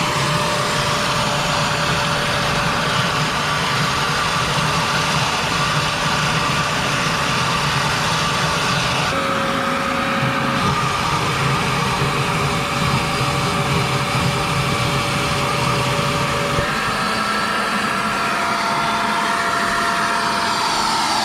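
Craftsman wet/dry shop vac running steadily while vacuuming dirt and debris out of a pool filter housing. Its motor whine drops slightly about nine seconds in and steps up again near seventeen seconds.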